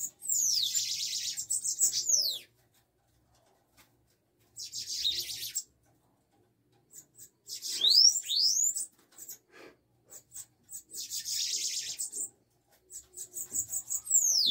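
Bananaquits (sibites) giving rapid, high, buzzy chirping trills with sharp sliding whistles, in five bursts of one to two seconds each. These are agitated calls from two birds fighting in a cage.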